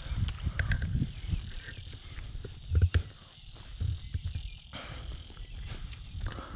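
Rustling and scattered sharp clicks from plum branches being handled as fruit is picked by hand, over irregular low rumbling from wind or handling on the microphone. Short high chirps come in a couple of seconds in.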